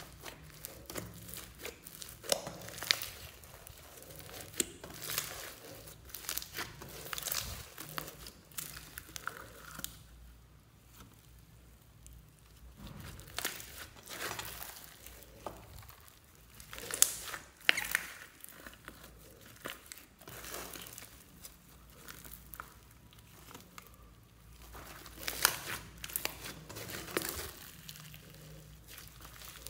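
Floam slime mixed with clay being pressed, poked and stretched by hand: the foam beads crunch and the sticky slime crackles and pops irregularly, with louder clusters of pops about halfway through and again near the end.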